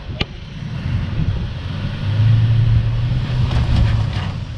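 Pickup truck engine running under throttle as it crawls over rocks, a low rumble that swells about two seconds in and eases off near the end. A single sharp click near the start.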